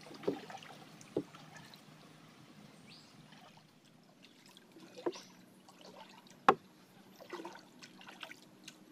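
Faint water trickling and dripping, with scattered small knocks and clicks; one sharp knock about six and a half seconds in is the loudest.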